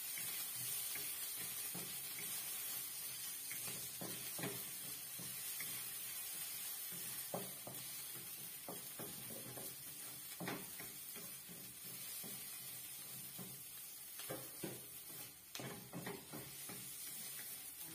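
Wooden spatula scraping and knocking against a wok as ginger strips are stir-fried, in irregular light taps over a steady faint hiss.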